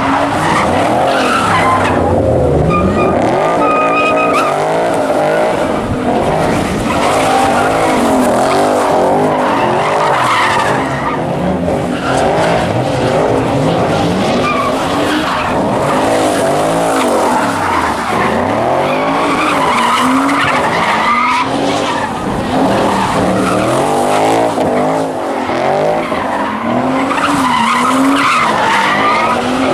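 Mk3 Toyota Supra inline-six and Ford Mustang GT V8 doing donuts together, engines revving up and down over and over with tires skidding on the pavement.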